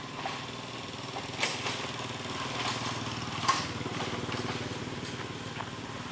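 A small engine running steadily, its fast even pulses making a low hum, with a few short sharp clicks over it, the loudest about one and a half and three and a half seconds in.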